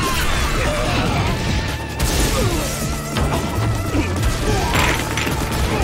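Anime action soundtrack: dramatic music under crashing, smashing impact sound effects from gunfire and an explosion, with a sudden loud hit about two seconds in.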